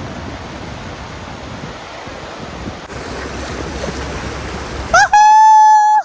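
Fast river rapids rushing, a steady roar of churning water. About five seconds in, a loud shrill tone breaks in, two quick upward chirps and then a held note for about a second, cut off abruptly.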